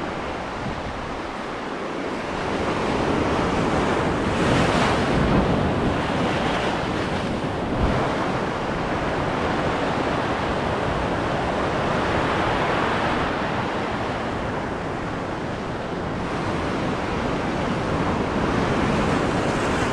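Ocean surf breaking and washing over a rocky shoreline: a steady rushing wash that swells louder as each wave surges in, several times over.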